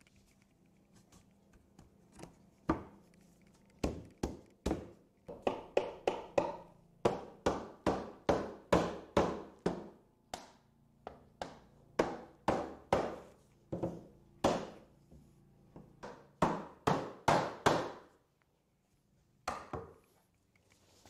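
A mallet knocking the joints of a cherry table frame home: a run of sharp wooden knocks, about two a second in irregular bursts, stopping about 18 seconds in, with one more knock near the end.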